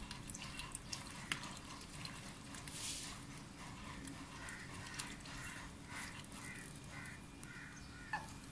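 White domestic ducks feeding from a metal bowl: scattered clicks of their bills against the bowl. From about halfway through comes a quick run of short duck calls, two or three a second, ending in a louder call near the end.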